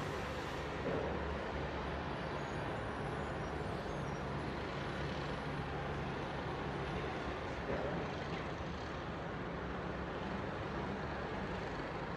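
Machinery running steadily: a low hum under a broad, even hiss.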